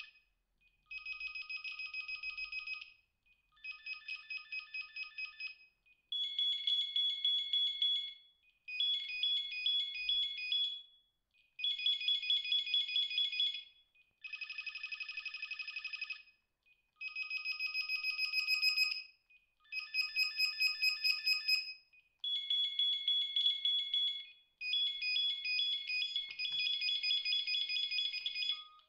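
Samsung SP-R5210pp cordless handset playing its built-in electronic ringtone as a preview in the ring-type menu. It plays as a string of rapid high trilling bursts, each about two seconds long with short gaps between, the pitch pattern changing from burst to burst.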